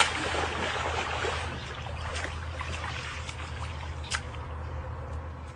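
Shallow running water splashing as a dog wades through it, dragging a large fish out onto the grass. The water noise is loudest at first and then thins, over a steady low hum, with one sharp knock about four seconds in.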